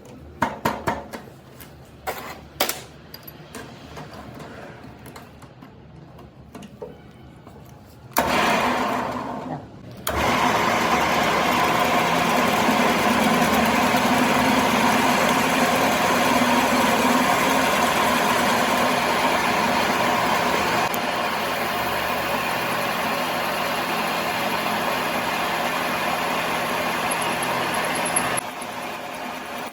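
A few knocks and clicks of metal work, then a workshop machine's motor starts about eight seconds in, falters for a moment and runs steadily, dropping a little in level about two-thirds of the way through and again near the end.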